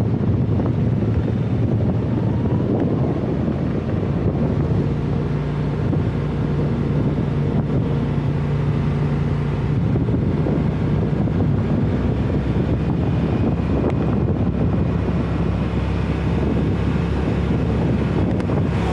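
Side-by-side UTV's engine running steadily while driving, with wind buffeting the microphone.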